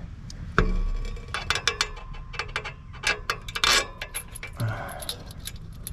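Small metal parts clicking and clinking as the retaining bolt is handled and fitted into a newly installed electric PTO clutch, with one sharp knock about half a second in.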